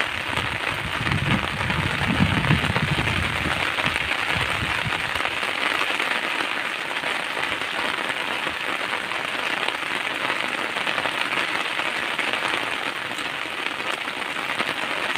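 Rain falling steadily on a wet paved surface: a dense, even hiss of many drops. A low rumble sits under it for the first few seconds, then fades.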